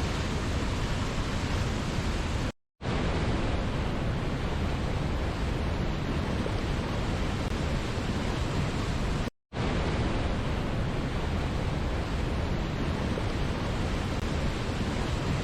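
Waterfall rushing: a steady, even roar of falling water, broken by two brief dead silences of a fraction of a second, about two and a half seconds in and again about seven seconds later.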